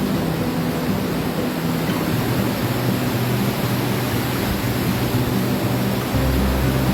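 Steady rush of river water pouring over a weir, with the sustained low notes of background music under it.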